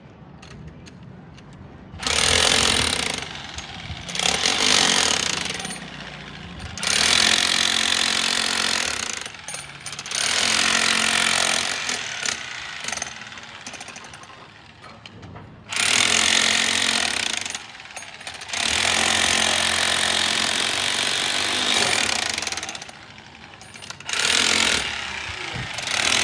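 A powered hammer tool, of the jackhammer or breaker kind, running in repeated bursts of a few seconds each with a fast hammering rattle, starting about two seconds in.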